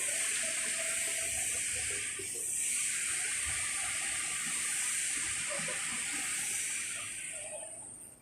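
A steady hiss that fades away near the end.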